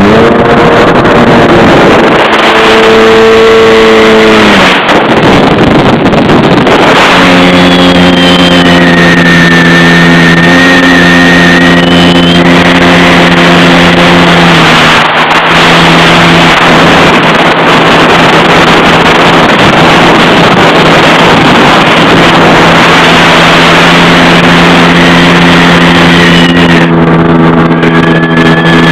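Jet ski engine running under way, a steady engine note over heavy wind and water rush. The throttle eases off briefly about five seconds in and again about halfway through, then the engine settles back to a steady pull.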